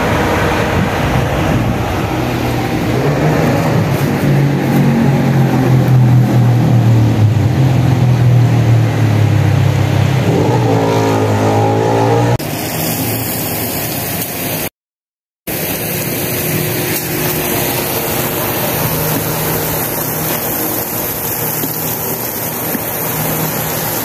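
Electronic background music with a stepping bass line for about the first half. After an abrupt change and a brief drop-out, an even hiss of water spraying from a garden hose nozzle mounted on a running electric fan.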